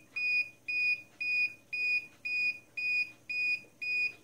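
Dogtrace D-fence 1001 invisible-fence transmitter beeping: a short high electronic tone repeating evenly, just under twice a second. This is its wire-break alarm, sounding because the boundary wire is not connected.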